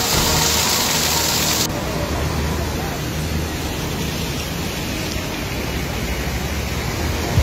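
Heavy rain hissing steadily, cutting off abruptly about two seconds in to a duller rushing noise with people's voices.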